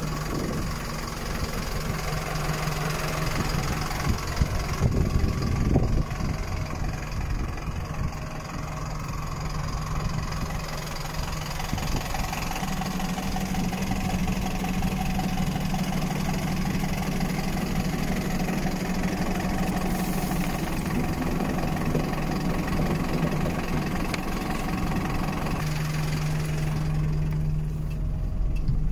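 Mercedes-Benz Atego 1018 diesel engine idling steadily, with a few louder bumps about five seconds in. Near the end it is heard more muffled from inside the cab.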